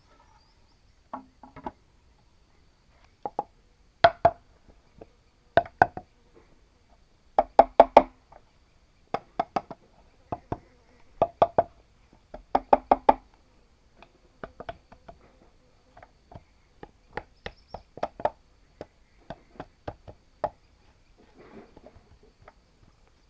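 Bamboo being struck with a tool: sharp, hollow-ringing knocks coming in pairs and quick bursts of three or four, the hardest about a third of the way in, then lighter, more scattered taps and a soft scraping near the end.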